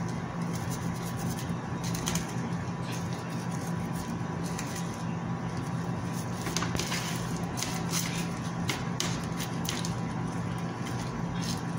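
Plastic food-handling gloves crinkling and rustling as hands sprinkle salt and pepper and turn raw chicken drumettes, making scattered crackles that come thickest in the middle. A steady low hum runs underneath.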